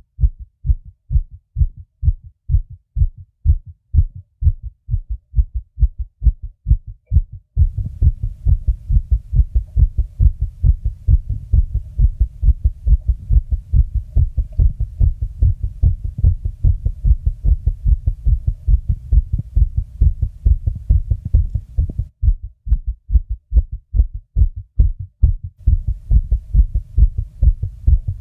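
A person's heartbeat beating fast, as rapid, even low thumps. Through much of the middle a low steady rumble fills the gaps between beats; it drops away for a few seconds about three-quarters through, then comes back.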